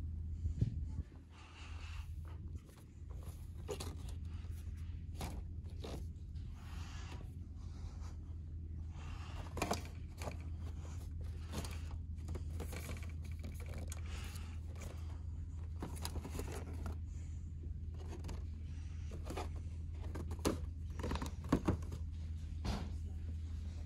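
Toy packaging being handled: cardboard boxes and plastic blister cards rustling, scraping and clicking in the hand at irregular moments, over a steady low hum.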